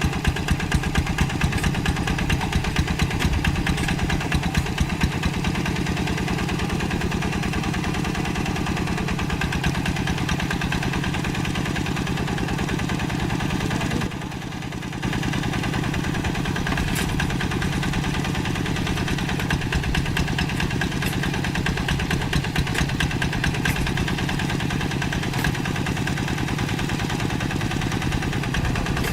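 Two-wheel hand tractor's single-cylinder diesel engine running steadily with a rapid, even chugging, briefly quieter for about a second midway.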